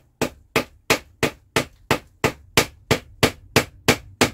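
Rubber mallet repeatedly striking the top of a wooden cherry-branch stake, driving it into dry, compacted soil: a steady run of sharp knocks, about three a second.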